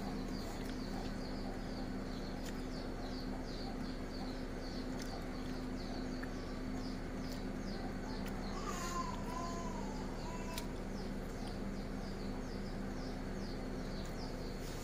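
Small bird chirping over and over, about three quick high chirps a second, over a steady low hum. Just past the middle comes a short whistled call that rises and falls.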